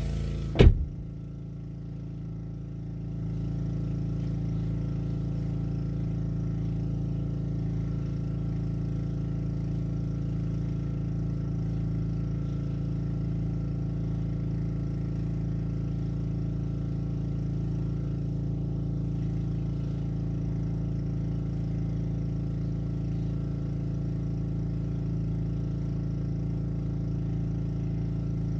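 A door shuts with a thump under a second in. After it the single-cylinder Honda engine of a Black Max pressure washer runs steadily, heard muffled.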